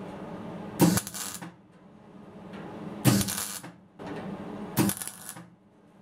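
MIG welder laying three short tack welds on sheet steel, each a burst of about half a second, with a steady low hum underneath.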